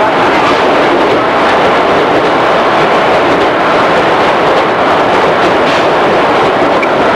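JR East 211 series electric train running at a steady pace, heard inside the passenger cabin of its motor car: a continuous, loud rumble of wheels on rail and running gear with no change in pitch.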